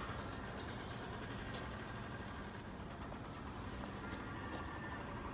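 Steady low hum of motor vehicles and traffic, with a few faint clicks.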